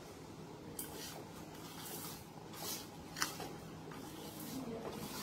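A hand mixing dry pickle spice powders (mustard, chili powder, salt) in a stainless steel bowl: soft gritty rustling with a few brief scratchy strokes, the sharpest a little past three seconds in.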